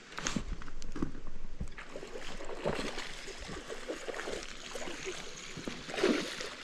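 Irregular rustling and clicking from hands handling a fishing rod and reel close by.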